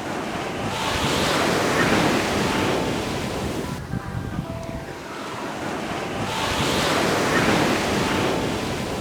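Ocean surf washing onto a beach in two swells, the first building about a second in and the second about six seconds in, each rising and then fading away.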